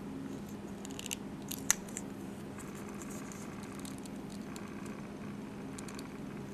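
Light ticks and soft rustling of cotton tatting thread sliding through the fingers and over a tatting shuttle as double stitches are formed, with one sharp click about two seconds in, over a steady low hum.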